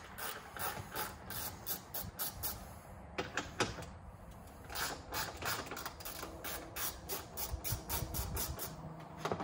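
Socket ratchet clicking in quick runs with short pauses as it backs out the 10 mm screws on a car's airbox.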